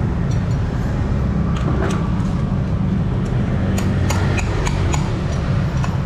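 Hammer striking a steel drift set in a spoked motorcycle wheel's hub: a series of sharp metallic knocks, about three a second near the end, over a steady low rumble.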